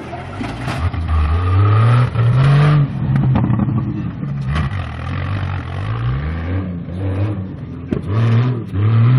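Off-road competition car's engine revving hard in repeated bursts, its pitch climbing under throttle and dropping back several times.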